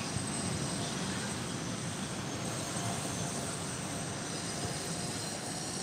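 Steady rush of distant city traffic, an even noise with no separate events standing out.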